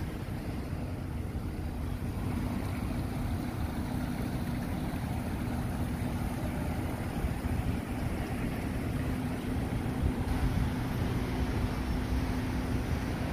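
Street ambience beside a road: steady low traffic noise with wind buffeting the microphone, and a steady low hum under it.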